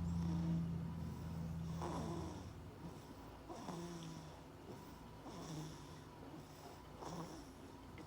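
Baby snoring in its sleep: a drawn-out low snore for about the first two seconds, then short noisy breaths roughly every two seconds.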